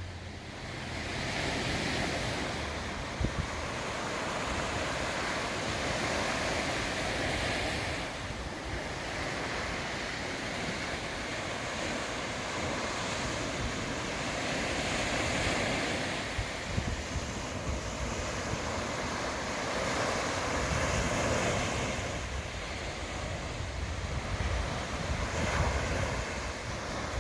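Sea surf washing onto the shore, swelling and easing every several seconds. Wind gusts buffet the microphone with a low rumble, more so in the second half.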